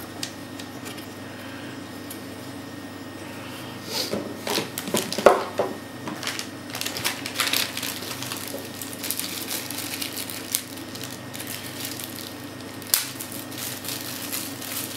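Thin plastic packaging bags crinkling and rustling as small plastic protein-skimmer parts are unwrapped by hand, with a few sharp clicks of hard plastic parts set down on the table. The handling starts about four seconds in, over a steady low hum.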